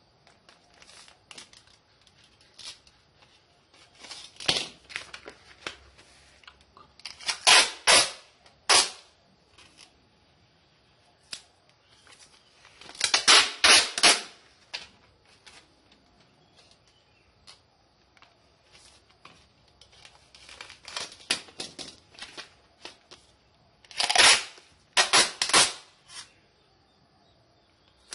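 Packaging being handled and torn: scattered clicks and rustles, with three clusters of loud, sharp tearing bursts that each last about a second.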